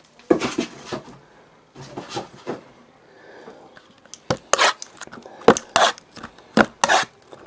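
A cardboard trading-card box and its wrapping being torn and opened by hand: short sharp crackles, rips and taps, scattered at first and coming thick and fast in the second half.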